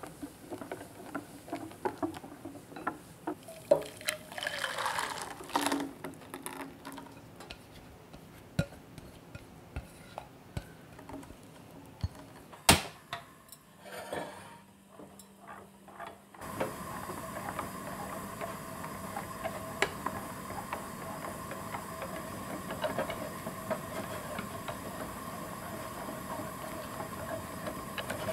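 Wire whisk clicking against a glass bowl while whisking egg yolks and milk, with liquid being poured a few seconds in. A sharp click near the middle, then the steady hiss of a gas burner under a white enamel pot, with the whisk stirring the thickening custard in it.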